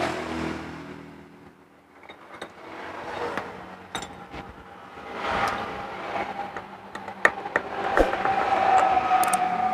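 Metal clinks and knocks as the scooter's CVT front drive pulley and roller housing are pulled apart by hand, with a steady hum underneath from about halfway.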